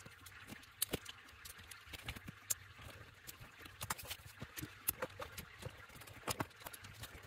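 LEGO bricks being snapped together and set down on a tabletop: irregular sharp plastic clicks and clatters, several a second.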